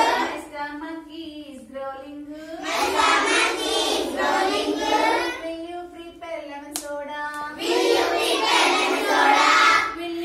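Group of children singing a rhyme in chorus, louder in two stretches, with a woman's single voice between them and a few sharp hand claps.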